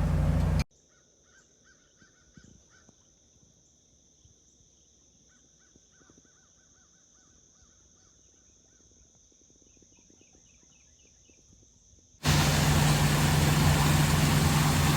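A boat's engine running with a steady low hum cuts off within the first second to faint outdoor sound: two steady high-pitched tones and bursts of repeated short bird calls. About twelve seconds in the engine noise starts again.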